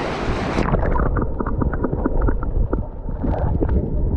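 Sea water sloshing and splashing close around the microphone, with a loud low rumble of wind and surf buffeting it; a hissing wash at the start, then a run of small sharp splashes and drips.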